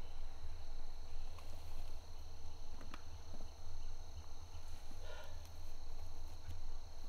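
Steady high-pitched insect trilling in two even tones over a constant low rumble, with a few faint rustles and clicks of movement in the grass.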